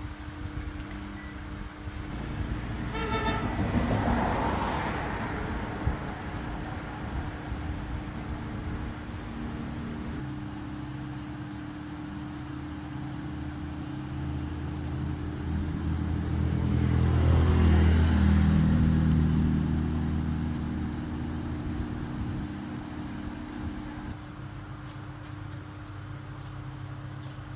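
Road traffic going past. A short horn toot sounds about three seconds in, and a louder engine rises and fades away past the middle, over a steady low hum.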